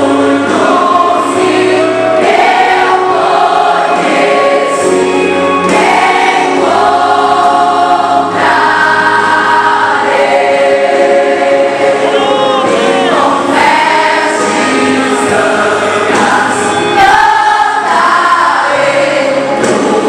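Large choir of teenage girls singing a gospel hymn, with notes held and changing in a continuous phrase.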